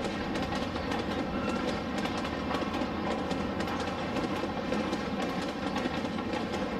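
HO-scale model freight train rolling steadily past, its wheels clicking over the rail joints in a continuous clickety-clack.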